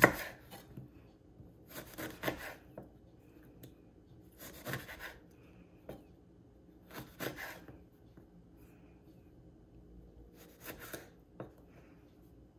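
A kitchen knife slicing through a lime and knocking on a wooden cutting board. There is a cut every two to three seconds, and the sharpest knock comes on the first cut.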